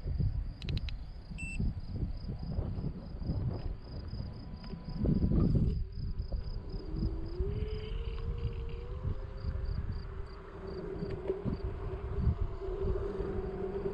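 Electric scooter's motor whining, rising in pitch as it picks up speed about halfway through and then holding steady, over wind buffeting the microphone and tyre rumble on asphalt. A steady high chirping of insects, about four chirps a second, runs through the first half.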